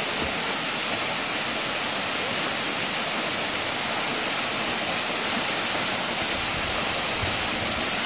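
Tall, narrow waterfall pouring down a rock face, giving a steady, even rushing of falling water.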